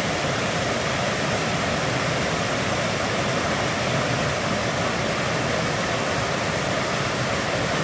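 Rushing water of a fast, rocky stream running high, pouring over boulders in small white-water cascades: a steady, unbroken rush.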